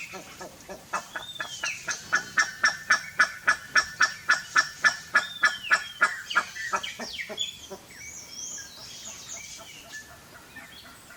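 Pair of buff-necked ibises calling together: a rapid run of loud calls, about four a second, starting about a second in and stopping after some six seconds.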